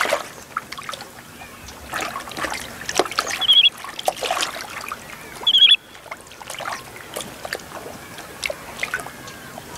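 Lake water splashing and trickling around a wooden boat, a scatter of small splashes and drips. Two short high-pitched calls stand out, about three and a half and five and a half seconds in.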